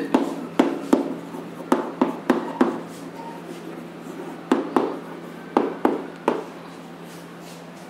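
Chalk tapping and scratching on a chalkboard as words are written, in short clusters of sharp clicks that stop about six and a half seconds in.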